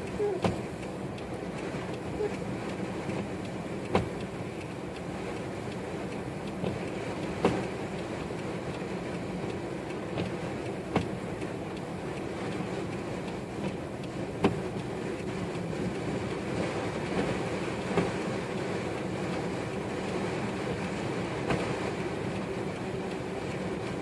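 Steady rumble of an idling vehicle in blizzard wind, with a sharp click repeating about every three and a half seconds.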